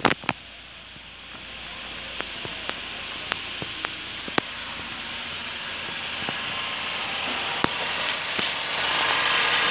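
LDV G10's 2.0-litre turbocharged petrol four-cylinder engine idling, a steady running noise that grows louder near the end as the open engine bay is reached. A few sharp clicks come through at irregular times.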